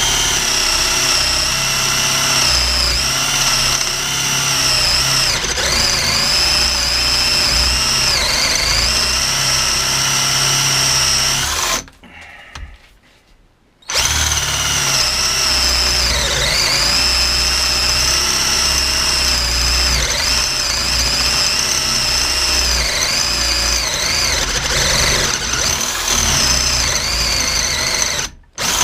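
Parkside PBSA 12 D4 12-volt cordless drill boring a 32 mm bit through a piece of 4x2 timber: a steady motor and gearbox whine that dips in pitch now and then as the bit bogs down under load. It stops for about two seconds around twelve seconds in, then runs again and breaks off briefly near the end.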